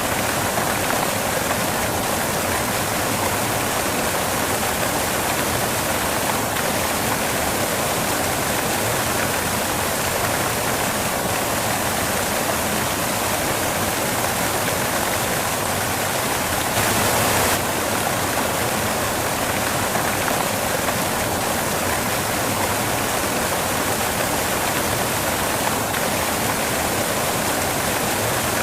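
Steady white noise: an even, unbroken hiss across the whole range, with one brief, slightly louder patch about 17 seconds in.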